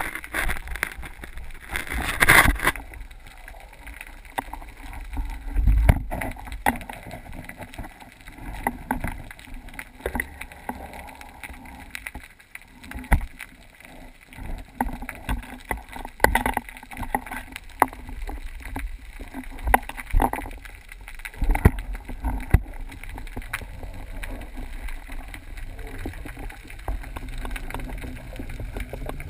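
Muffled underwater water noise heard through a GoPro's waterproof housing on a speargun, with gurgling and irregular knocks and clicks from the gun and housing being moved. There is a louder rush of noise about two seconds in.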